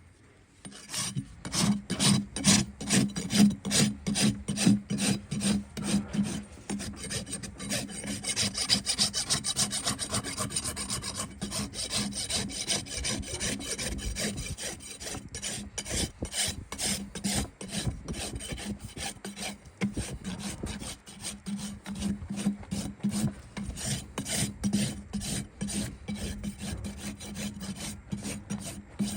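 Farrier's rasp filing a horse's hoof in rapid, repeated scraping strokes.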